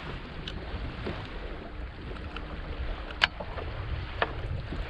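Steady wind and water noise around a boat on open water, with a few light clicks and taps as a caught bass is handled and unhooked; the sharpest click comes about three seconds in.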